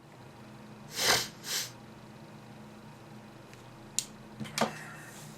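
A man with a blocked nose sneezing twice in quick succession about a second in. A sharp click follows a few seconds later, then a shorter nasal burst near the end, over a faint steady low hum.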